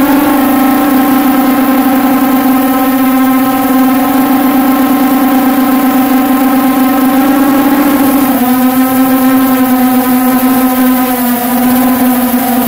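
Quadcopter's electric motors and propellers buzzing loud and steady, heard from a phone mounted on the craft itself. The tone drops a step in pitch about eight seconds in.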